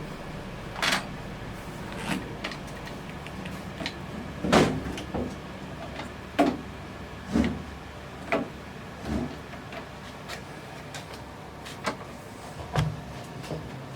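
Irregular knocks and clunks, roughly one a second and the loudest about four and a half seconds in, over a faint steady hum.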